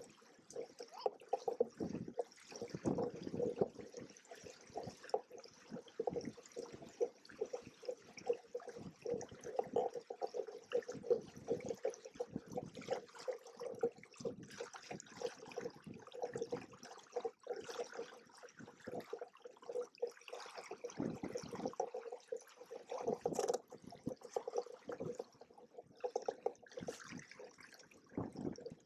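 Water splashing and sloshing against the hulls of a Hobie Cat 16 catamaran in irregular surges.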